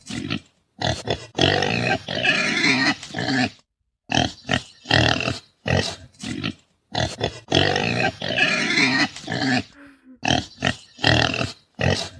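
Pigs calling in a run of short, loud bursts, with brief silent gaps between them.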